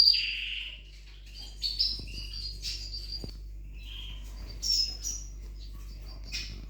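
Canaries chirping in short, high calls scattered throughout, over a faint steady low hum.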